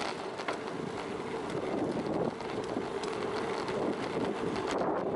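Wind rushing over the microphone of a camera on a moving bicycle, over a steady rush of riding noise, with a few faint ticks.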